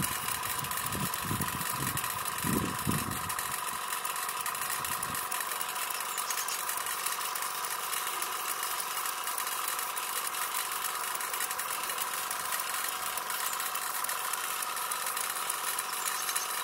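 Stuart 10V model vertical steam engine ticking over on compressed air: a steady fast whirr with air hiss from the exhaust. A few low thuds sound during the first three seconds.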